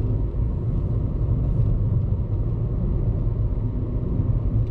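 A car being driven along a road: a steady low rumble of engine and road noise.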